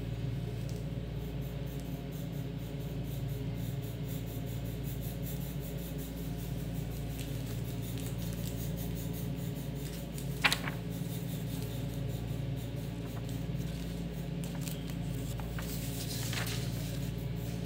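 Wax crayon scratching and rubbing on paper over a steady low hum, with a brief sharp click about ten seconds in and a fainter one near the end.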